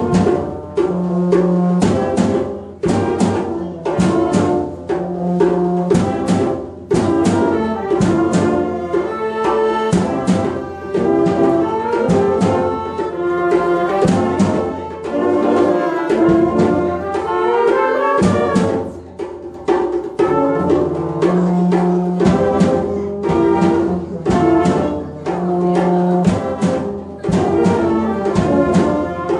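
Youth fanfare band playing live, with brass and saxophones carrying the tune over a drum kit that keeps a steady beat.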